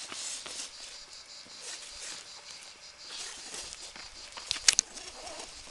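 Rappel rope running through a descender in short hissing runs as the trainee lowers down. A single sharp click sounds near the end.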